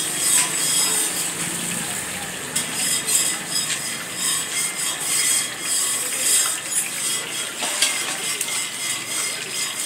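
Chicken pakoda deep-frying in hot oil in an iron kadai: a steady high sizzle with crackling, while a metal skimmer stirs the pieces and scrapes against the pan.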